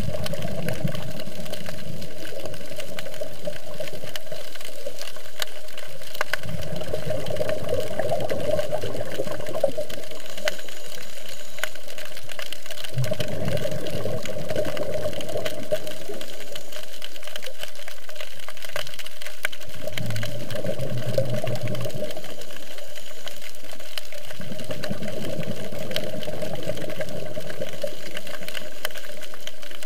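Underwater ambience from a scuba dive: a scuba diver's exhaled regulator bubbles rumble up in bursts every several seconds, over a steady hiss and a fine crackle of clicks.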